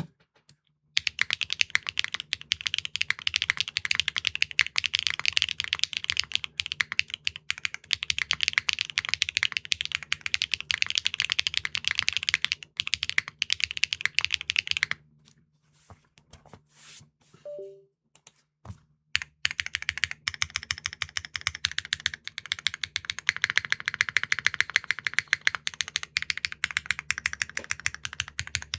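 Fast typing on a mechanical keyboard with Keygeek PA triple-nylon linear switches in a Neo65 Core Plus: a dense, clacky patter of keystrokes, pausing to a few scattered key presses for a few seconds in the middle before resuming.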